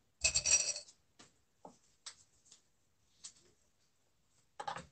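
Fabric rustling and small handling noises as a quilted fabric bowl cover is pulled right side out by hand, with a louder rustle about a quarter second in and another short one near the end.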